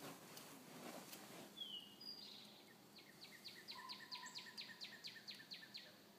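A songbird singing faintly: a couple of thin high whistled notes, then a run of about a dozen quick falling notes, four or five a second.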